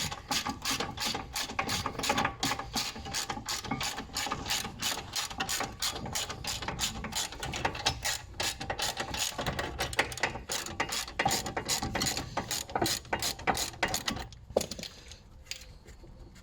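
Hand ratchet wrench clicking steadily and rapidly as it backs out the top bolt of a brake caliper carrier; the clicking stops near the end.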